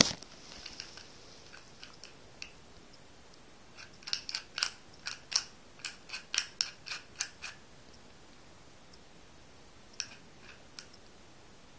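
Master Lock 1500 combination padlock being worked by hand: a quick run of small clicks, about four a second, for a few seconds, then a couple more clicks near the end. The lock keeps jamming.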